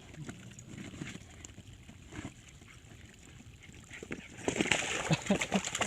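Puppies splashing in shallow pond water: faint at first, then a louder, busy run of irregular splashes starting about four seconds in.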